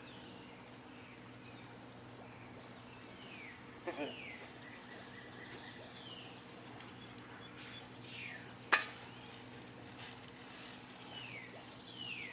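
Birds calling faintly in the background with short, repeated downward-sliding chirps. A single sharp click sounds about nine seconds in.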